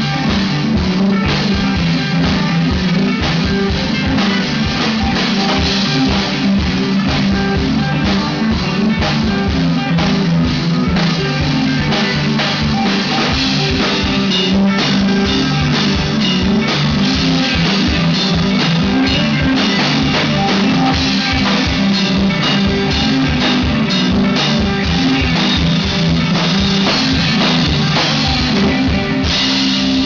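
Live rock band playing loud: electric guitars over a steadily beaten drum kit.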